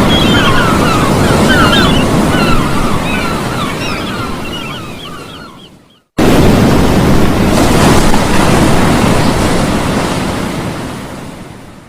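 Steady rushing noise of wind and waves, with short high chirps over it for the first few seconds. It fades out about six seconds in, cuts back in suddenly, and fades out again near the end.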